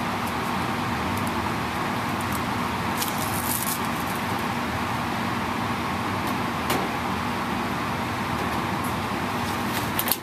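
Biosafety cabinet blower running, a steady rushing airflow noise with a low hum. Light clicks and rustles of plastic labware being handled come about three seconds in and again near seven seconds.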